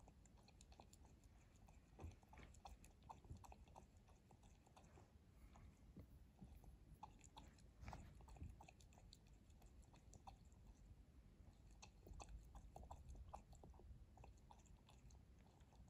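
Bengal cat lapping water from a drinking glass: a long run of faint, quick wet tongue clicks.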